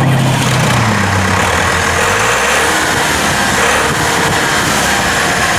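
John Deere 6400 tractor's diesel engine running, its low engine note easing off about two seconds in.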